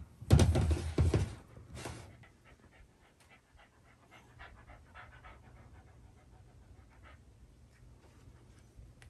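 A Shiba Inu panting in quick, loud breaths for the first two seconds, then near quiet with a few faint small clicks.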